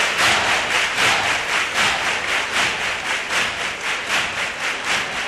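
Audience clapping together in a steady rhythm, about four claps a second, slowly fading toward the end.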